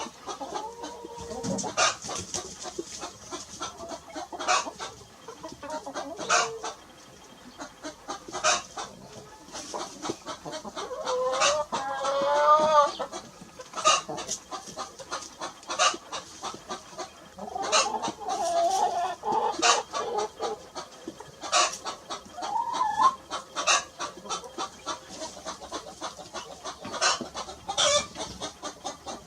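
A rooster and hen clucking, short sharp clucks again and again, with a long crow about eleven seconds in and shorter drawn-out calls later on.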